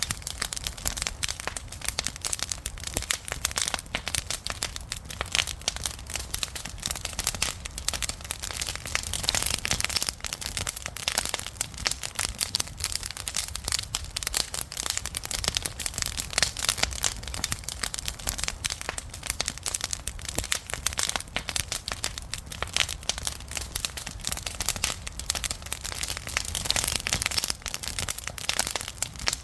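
Campfire burning, wood crackling and popping in a dense, irregular stream of sharp snaps over a low rumble of flame.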